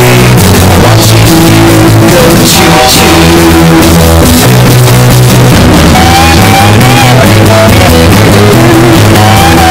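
Bass-boosted rock music played very loud, near full scale, with heavy bass notes and a voice singing in the second half.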